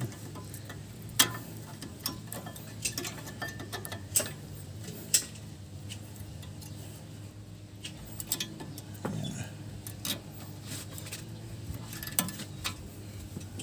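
New brake pads and their metal shims being pushed by hand into a disc brake caliper bracket: scattered light metallic clicks and taps at irregular intervals, over a steady low hum.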